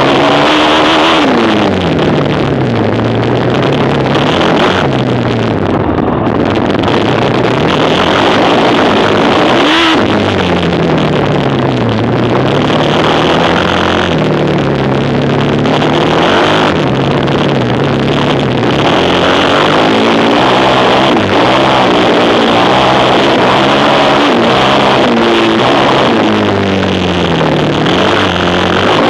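Quad bike engine running hard, its pitch falling and rising again and again as the throttle is closed and reopened.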